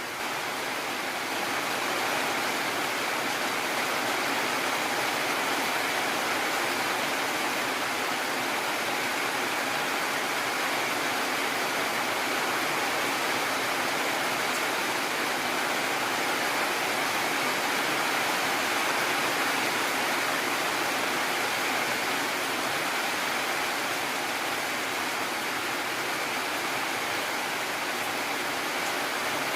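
Heavy rain falling steadily, an even rushing hiss with no thunder, growing slightly louder over the first couple of seconds.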